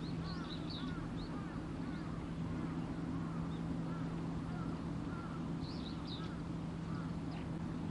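Birds calling over and over, short arching calls with a few higher chirps among them, over a steady low hum.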